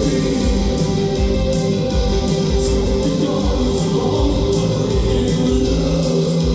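Live rock band playing loud: electric guitar and bass over a steady drum beat.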